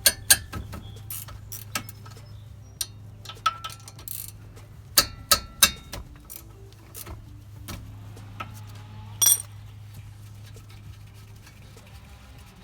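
Hand tools on the brake caliper's bolts: irregular metallic clicks and clinks, a few with a brief ringing tone, the loudest knock about nine seconds in, over a low steady hum.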